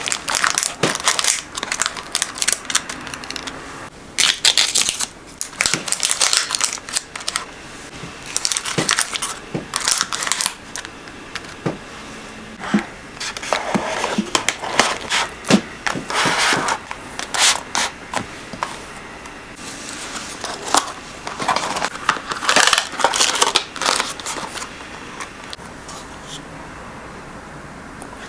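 Close-up handling of paper and cardboard: irregular crinkles and rustles of paper truffle cups and a cardboard gift box, with scrapes as the box slides into its paper sleeve. The rustling comes in bursts and dies away near the end.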